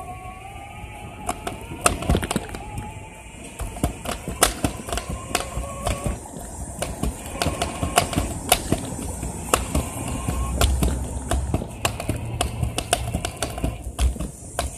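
Small hard scooter wheels rattling and clicking irregularly over pavement and sidewalk joints while riding. A whine rises slowly in pitch over the first several seconds.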